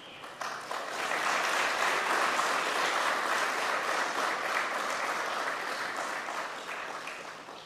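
A large seated audience applauding, building up over the first second, holding steady, then tapering off near the end.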